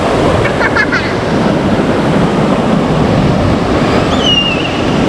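Rough sea surf and wind rushing steadily, with wind buffeting the microphone. Brief high-pitched cries cut through about a second in and again near the end.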